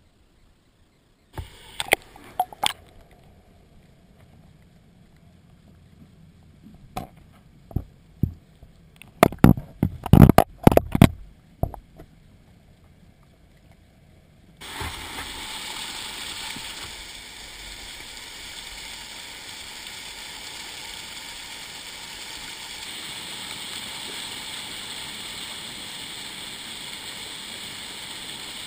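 Sharp knocks and clunks picked up through an underwater camera housing in the river, in scattered clusters, loudest a little before the middle. About halfway through, a steady rush of fast-flowing, churning river water sets in and holds.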